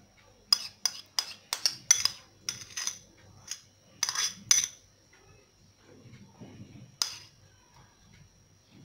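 A metal spoon clinking and scraping against a bowl and a metal baking tray: a quick run of about a dozen sharp clicks over four seconds, then one more a couple of seconds later.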